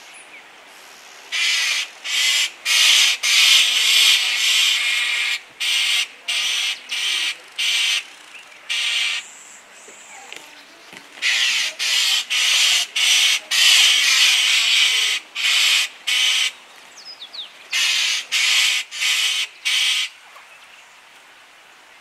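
Loud, harsh, buzzy animal calls in repeated bursts of under a second, in two long runs with a short pause between.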